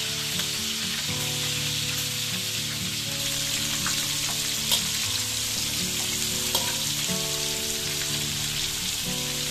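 Giant freshwater prawns sizzling steadily in hot oil in a steel wok as they are shallow-fried. A slotted metal spatula turns them, knocking lightly against the wok a couple of times, most clearly about halfway through.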